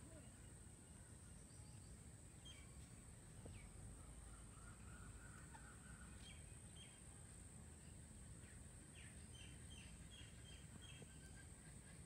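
Near silence: faint outdoor ambience with a low rumble and a steady high-pitched hiss, broken by faint short bird chirps now and then, with a quick run of them near the end.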